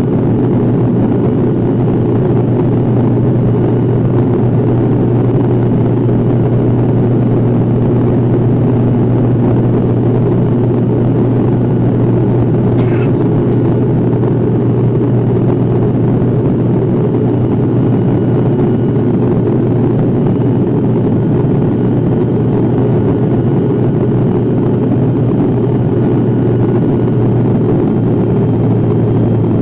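Steady drone of a turboprop airliner's engines and propellers heard inside the cabin, with one strong low hum over a dense low rumble.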